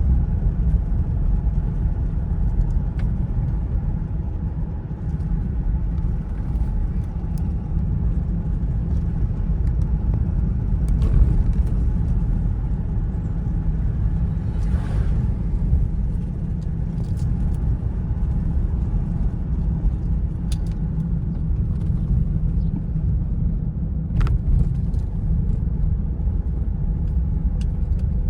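Car driving at a steady speed: an even, low rumble of road and engine noise, with a brief hiss about halfway through.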